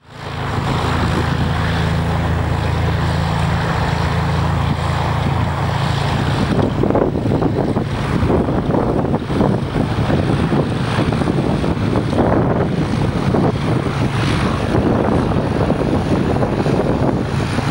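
Cessna 172's piston engine and propeller running with a steady low hum for about the first six seconds. After that, gusty wind buffeting the microphone takes over, rough and uneven.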